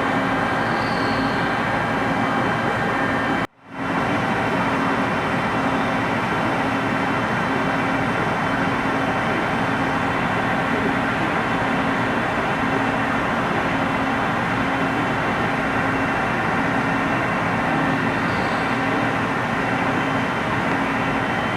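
Lathe running steadily as it turns a large workpiece, a constant machine drone with several steady tones, broken by a brief dropout about three and a half seconds in.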